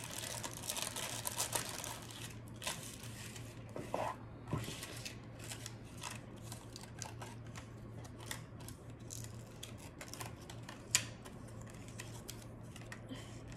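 A clear plastic bag crinkling as it is opened, then paper picture cards rustling and being tapped down one by one on a card folder, a scatter of small clicks with one sharper click near the end. A faint low hum runs underneath.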